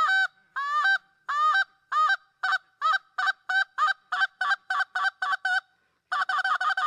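Reed Canada goose call blown by hand: two-note honks, each breaking from low to high, that start long and grow steadily shorter and faster as the first part of each call is shortened, working toward the cluck. After a short pause near the end comes a fast run of quick clucks.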